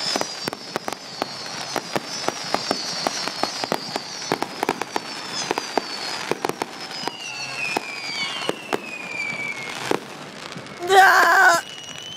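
Consumer fireworks going off: a rapid run of sharp pops and crackles, with several high whistles sliding down in pitch over them. Near the end comes a loud, wavering pitched sound lasting about a second.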